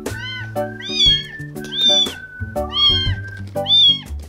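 A tiny kitten mewing repeatedly, about one high-pitched mew a second, over background music.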